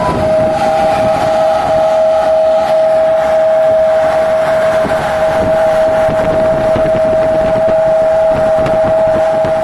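48-inch bag-lift centrifuge machine with an ebonite-lined basket running: a loud, steady high whine of two held tones over a rumbling, knocking mechanical noise.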